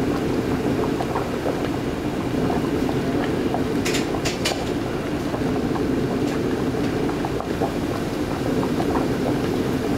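Large pot boiling over a gas burner: a steady rumbling bubbling, with a few short clinks about four seconds in.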